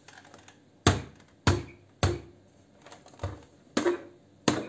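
ELC plastic toy drum knocking hollowly as it is handled by hand and tipped over onto its side: about six sharp knocks at uneven intervals.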